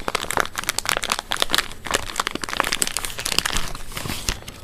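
Plastic packaging crinkling and rustling as small rifle parts are handled, a dense run of irregular crackles.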